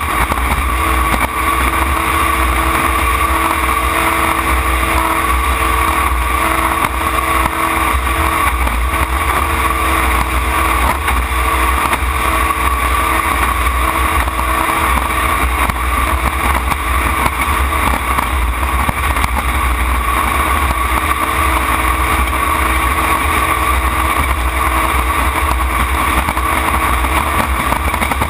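Racing jet boat's engine running steadily at speed, heard from the open cockpit with heavy wind and water rush over it.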